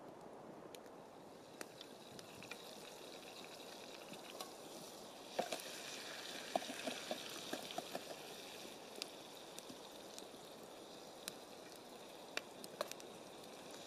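Faint cooking sounds at a small Firebox wood stove: scattered small clicks, then from about five seconds in a soft hiss with a run of light crackles.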